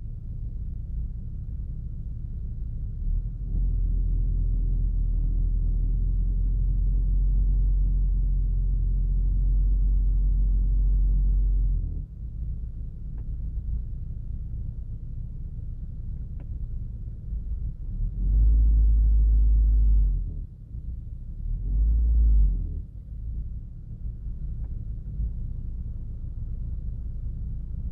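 Car engine idling with a low rumble, then brought up under throttle three times (one long press, then two short ones), each time swelling to a louder, deeper rumble before dropping back to idle. The owner hears a knock and rattling rumble from the engine bay, on the timing-belt pulley side, when the gas pedal is pressed at about 1000–1500 rpm, and does not yet know the cause.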